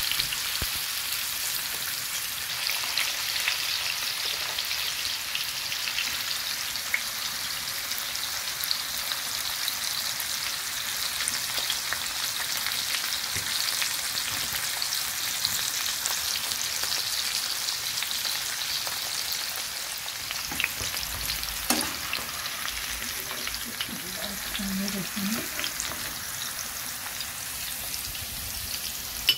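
Carrot slices sizzling as they shallow-fry in hot oil in a pan: a steady hiss with small pops, and a single sharp click about twenty-two seconds in.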